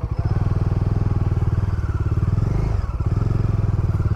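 Bajaj Dominar 400's single-cylinder engine running at low revs as the motorcycle pulls off slowly on a dirt track. Its exhaust beat is steady, with a brief change in the beat about two and a half seconds in.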